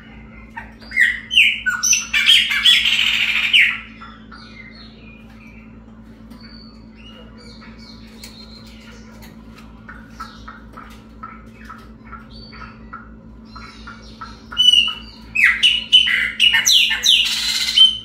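Chopi blackbird (pássaro-preto) singing: a loud phrase of quick, clear notes about a second in and another near the end, with softer chirps between them, over a steady low hum.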